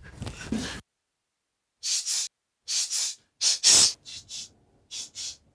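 A person making heavy, hissing breaths: five short breathy bursts without voice, about half a second apart, starting after a pause of about a second, the fourth the loudest.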